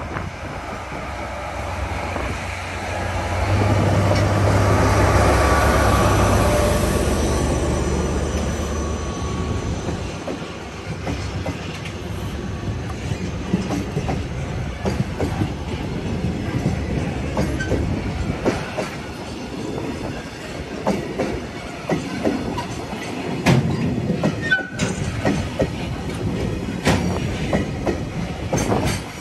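KE65 diesel locomotive pulling a container freight train away from a stop, its engine drone loudest a few seconds in as it passes. Then the container wagons roll by with a steady clatter of wheels knocking over the rail joints.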